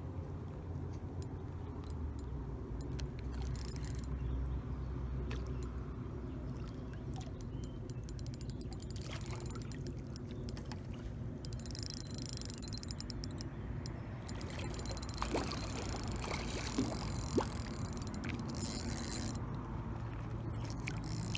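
Handling noise from an angler's rod and reel as a hooked carp is played in close, a steady low drone with scattered clicks. A rush of water splashing runs through the second half, with a few sharper knocks near the end of it.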